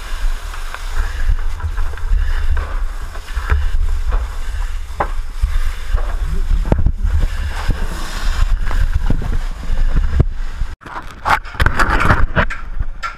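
Fire hose nozzle spraying water: a steady, loud hiss over a heavy rumble on the helmet camera's microphone, with scattered knocks. The sound breaks off abruptly a little before the end, then comes back as louder clattering and hiss.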